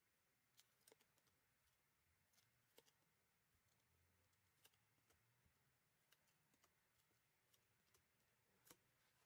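Near silence with faint, irregular clicks and ticks of trading cards being slid and flicked through gloved hands, one sharper click near the end.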